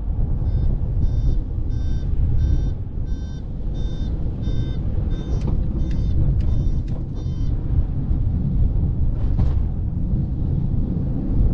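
An electronic beeper sounding about twice a second, some fifteen beeps, then stopping, over steady wind and road rumble.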